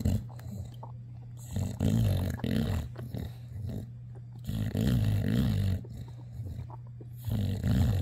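English bulldog chewing on a rubber ring toy, with noisy breaths and grunts through its nose in three bouts of about a second each, roughly every two and a half seconds.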